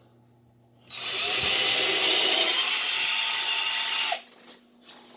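Electric drill with a 1/16-inch bit boring a nail pilot hole through the wooden corner joint of a beehive frame. It starts about a second in, runs with a steady whine for about three seconds, and stops suddenly.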